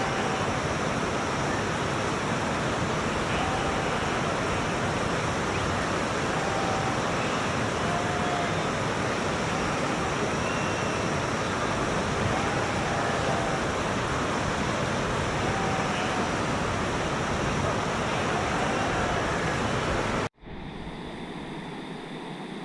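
Steady rushing noise with faint short arching calls every second or two; it cuts off suddenly near the end into a quieter background.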